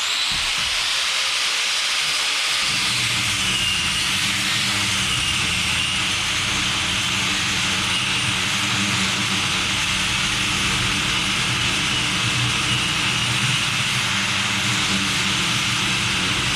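Handheld power tool running steadily under load, with a continuous hiss and a high whine that wavers slightly in pitch.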